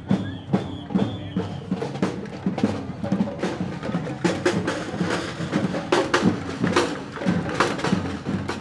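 Children's marching drum band playing snare-type drums with sticks in a steady carnival beat: sharp hits about two a second at first, growing busier.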